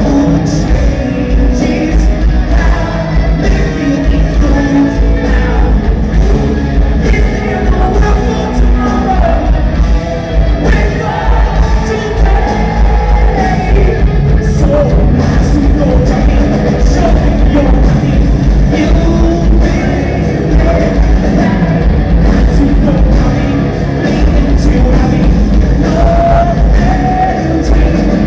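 Rock band playing live with a lead singer, loud and bass-heavy, as heard from the audience in a large hall.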